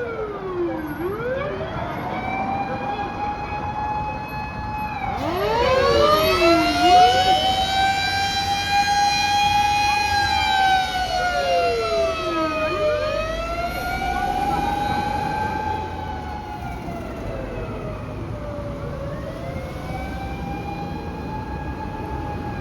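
Rescue truck's mechanical motor siren winding up and down in long slow wails, loudest in the middle, with a second wailing tone overlapping at times, over low vehicle noise.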